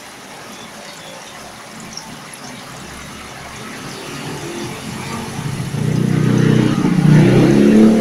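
An engine grows louder from about halfway through and is loudest near the end, like a motor vehicle passing, over a steady low hiss.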